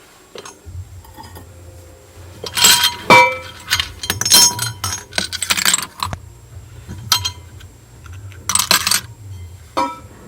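Glass and china items clinking and knocking together as they are handled and moved about on a stall, a run of sharp clinks with short ringing tones, thickest in the first half and then a few more near the end.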